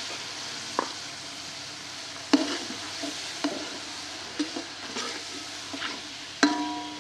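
Chopped tomatoes sizzling in hot oil with fried onions in a large aluminium pot, stirred with a steel ladle that knocks against the pot about seven times; the sharpest knocks ring briefly.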